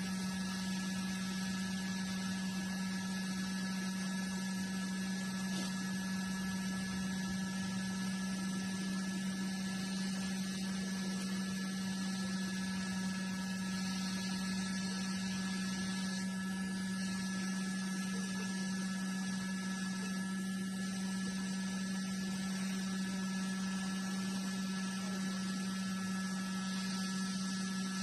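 Hot air rework station blowing on a phone circuit board to loosen a soldered memory card connector: a steady hum with a constant airy hiss.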